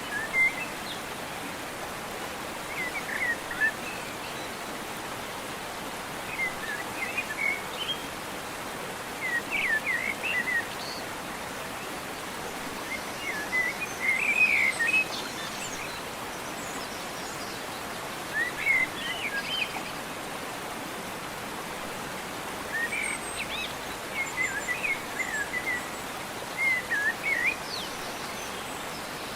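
Birds singing in short chirping phrases every few seconds over a steady background hiss of open countryside.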